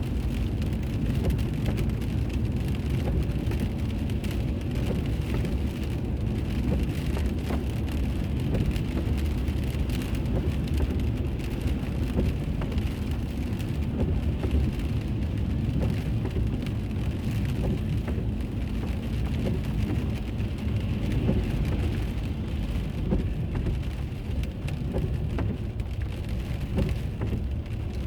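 Steady low road and tyre rumble with engine noise inside a moving car, picked up by a dashboard camera.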